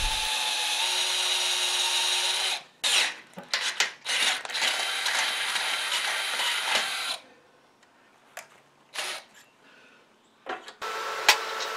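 Electric hand drill boring a half-inch hole through a steel hinge plate. It runs steadily, stops about two and a half seconds in, restarts in a few short bursts, then runs steadily again until about seven seconds in and stops, followed by a few faint clicks.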